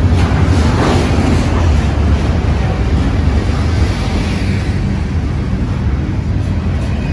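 BNSF double-stack intermodal freight train's container cars passing close by at speed: a steady heavy low rumble with the noise of wheels on rail, easing a little in the second half.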